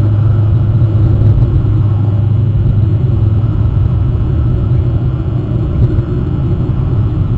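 A loud, steady low rumble with a noisy hiss over it.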